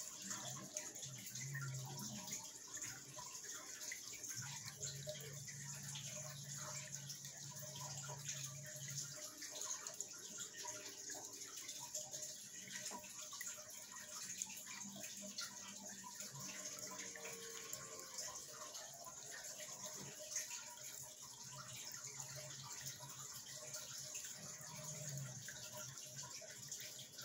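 Water from an aquarium filter's outflow splashing and trickling steadily onto the surface of a turtle tank, with a low hum that comes and goes.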